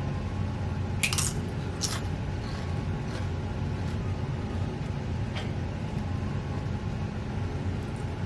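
Tortilla chip dipped and eaten: two crisp crunches about one and two seconds in, then a few fainter ones, over a steady low hum.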